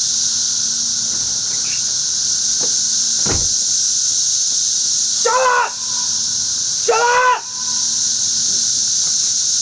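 Dense chorus of cicadas, a loud, steady, high-pitched buzz. Two short pitched calls cut through it about five and seven seconds in, with a brief thump a little after three seconds.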